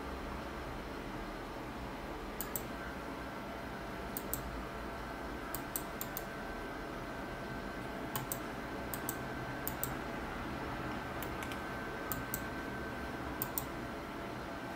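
Computer mouse buttons clicking, mostly in quick pairs, every second or two, over a steady background hum.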